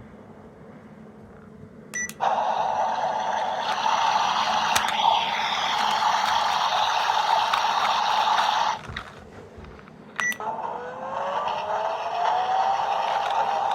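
Sound-making capsule toy playing electronic sound effects through its tiny speaker: a short beep, then a loud noisy effect with a steady tone in it that cuts off after about six seconds, then another beep and a second effect with rising tones.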